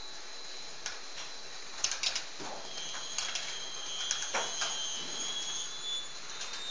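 Rock wool sandwich panel production line running: a steady machine hiss with scattered clicks and knocks and a thin high whine, joined by a second whine from about halfway through for a few seconds.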